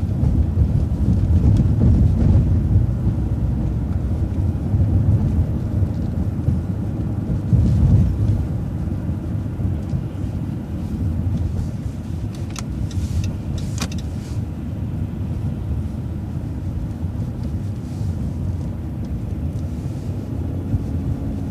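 City transit bus driving, a continuous low rumble of engine and road noise, heavier for the first eight seconds or so and then steady. Two short clicks a little past the middle.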